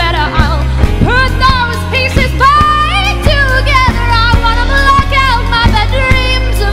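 A woman's voice singing long, wavering held notes that bend between pitches, over a live band with a steady bass line and a regular drum beat.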